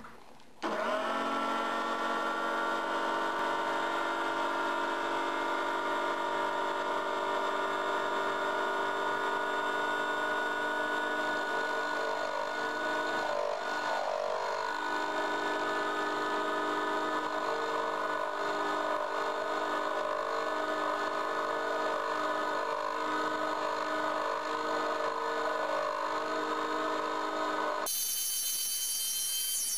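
Mini lathe's small electric motor switched on about half a second in, running with a steady whine of several tones while the tool cuts a stainless steel screw, at a spindle speed its owner thinks too high. Near the end the sound jumps much higher in pitch as it plays back ten times faster.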